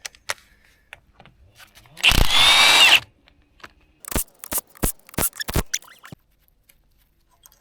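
Power drill running for about a second, turning a bolt extractor in a seized fastener, its motor pitch wavering under load; then a quick series of sharp metal clicks and knocks.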